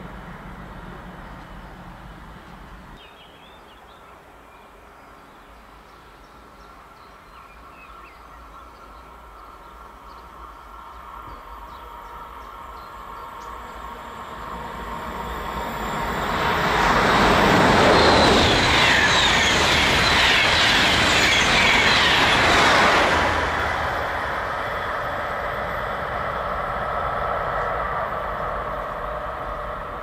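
Fast electric passenger train passing on a high-speed line: a rising rush of wheel-on-rail and air noise, loudest for about six seconds in the middle, then dropping away and fading as it recedes.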